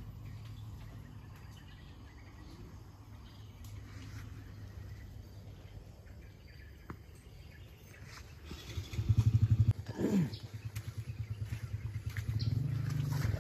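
A small engine running with a rapid, even pulse. It grows much louder about nine seconds in and briefly rises in pitch, as if revved.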